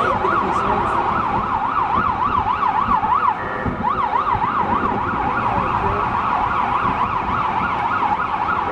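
Emergency vehicle siren in a fast yelp, sweeping up and down about three to four times a second; it breaks off briefly a little past three seconds in, then resumes, sweeping faster.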